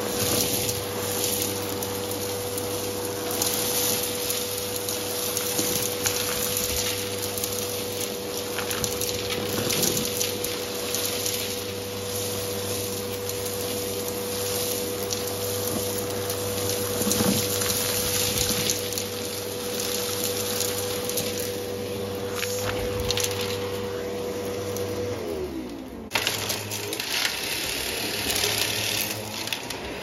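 Vacuum cleaner running with a steady motor whine while small hard debris such as beads and sequins clatters up the nozzle in scattered clicks. About 25 seconds in, the motor is switched off and its whine falls away over about a second, followed by rustling and knocking.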